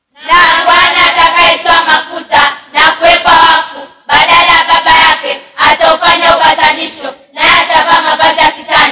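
A group of children singing together, in loud phrases broken by short pauses about four and seven seconds in.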